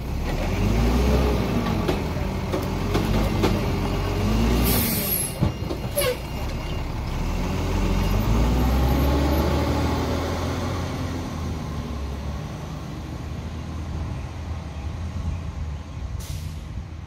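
Mack LE garbage truck's diesel engine revving up and down, then a short air-brake hiss about five seconds in. The engine pulls away and fades as the truck drives off.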